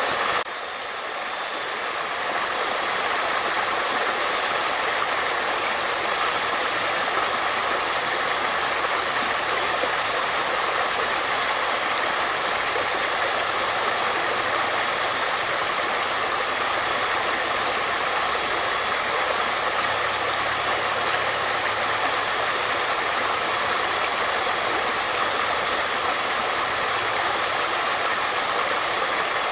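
Flowing water rushing steadily. The level dips briefly about half a second in and swells back within a couple of seconds.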